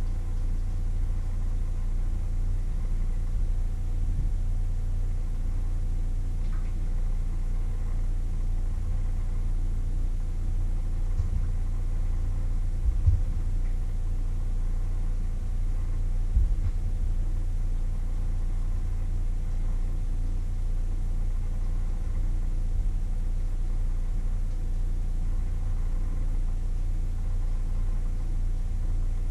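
Steady low hum with a faint steady tone over it, and a few soft knocks from kitchen bowls and utensils being handled, about halfway through.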